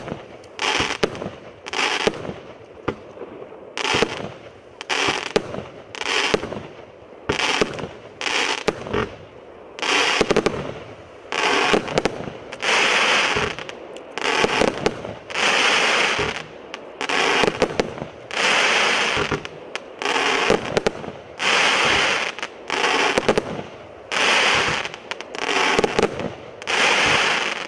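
B165 Atlas firework cake firing shot after shot, about one a second. Each shot is a bang followed by a crackling break. The shots in the second half are longer, each crackling for nearly a second.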